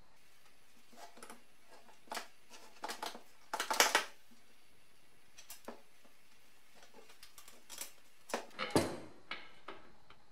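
Small metal clicks and knocks as a steel oil line's union nut and an engine oil cooler are handled and the fitting is threaded on and tightened against the bench. The clicks come in clusters, loudest about four seconds in and again near the end.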